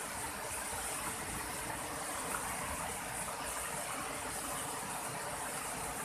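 Steady rushing noise of flowing water from a stream or waterfall, with no distinct events.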